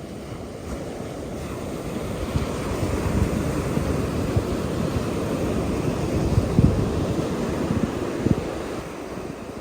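Ocean surf with wind buffeting the microphone. The wash swells about two seconds in and eases off again near the end, with a few low thumps from the wind.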